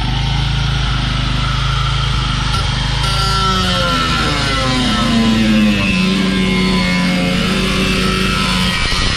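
Music with a melody that slides up and down from about three seconds in, over a steady low hum.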